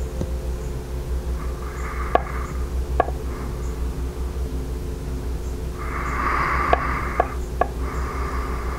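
Pen writing on paper in three short spells of scratching, with a few sharp taps, over a steady low hum.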